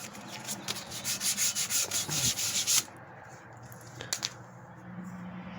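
Hand rubbing on the wood of an oak chair: quick back-and-forth strokes, about four a second, for nearly three seconds, then they stop.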